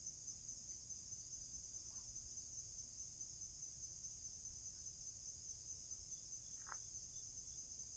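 Steady, high-pitched chorus of insects, an even shrill trill that never breaks.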